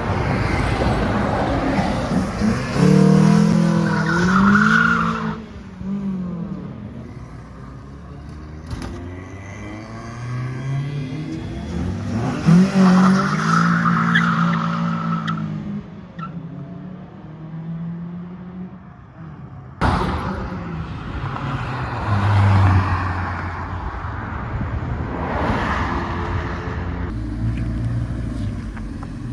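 Car engines revving up and accelerating away one after another, the pitch climbing and falling with each pull, with some tyre noise. There is a sudden sharp onset about twenty seconds in, followed by another engine building revs.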